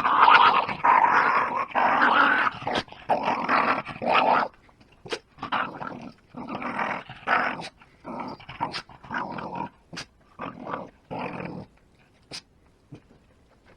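Jack Russell terrier snarling and growling, one long loud stretch over the first four and a half seconds, then shorter bouts until near the end, with several short sharp sounds in between.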